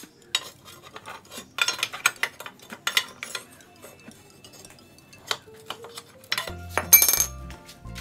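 Metal scraping and clattering as a metal bar is worked inside the cut-open steel shell of an air-conditioner compressor, with irregular knocks and a loud metallic clank near the end.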